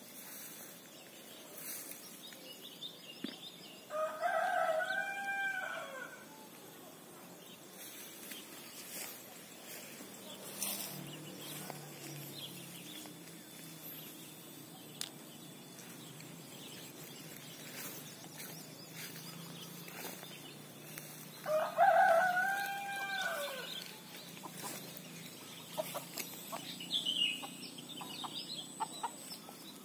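Rooster crowing twice, each crow a drawn-out call of about two seconds; the second crow, some seventeen seconds after the first, is louder.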